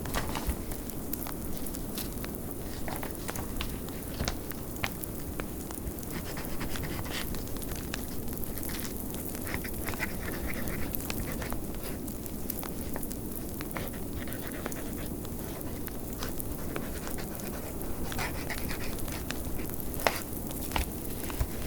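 Fireplace crackling, with scattered sharp pops and one louder pop near the end, over the steady low rush of snowstorm wind.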